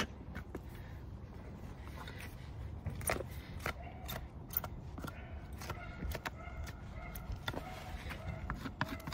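Hoof knife paring the sole and frog of a horse's hoof: short, irregular scraping cuts, over a low steady background rumble.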